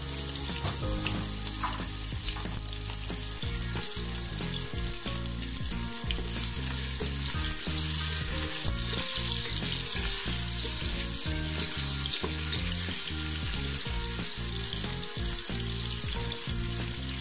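Sliced onions sizzling steadily as they fry in hot oil in a non-stick pan, stirred now and then with a spatula. Low background music plays beneath the sizzle.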